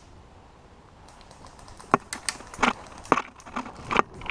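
Low background for about two seconds, then scattered sharp clicks and snaps that come faster toward the end.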